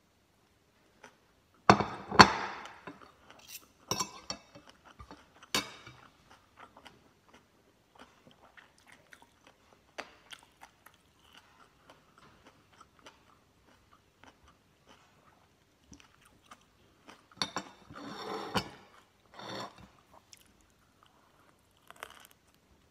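A person eating close to the microphone: crunchy bites into vegetables and chewing, coming in bursts. The loudest crunching is about two seconds in and again about three-quarters of the way through, with small clicks between.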